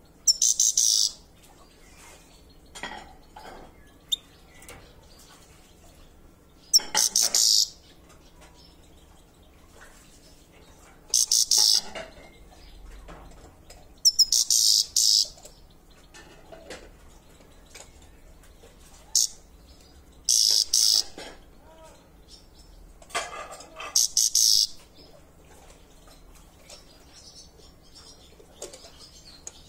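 Caged grey-headed goldfinch giving short bursts of high 'chir-chir' chirping calls, about six bursts several seconds apart.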